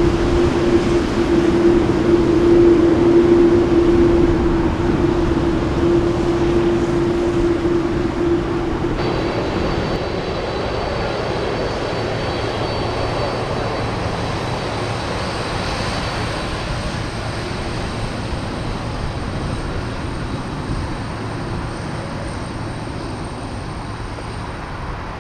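Boeing 747-8's GEnx-2B jet engines running at taxi power as the jet rolls past: a steady droning tone over jet rush. About nine seconds in this gives way to a broader rush with a thin high whine that slowly fades.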